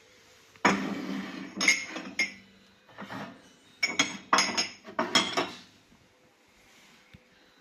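Dishes and glassware being handled: a string of clinks and clatters, some with a brief ring, for about five seconds before dying away.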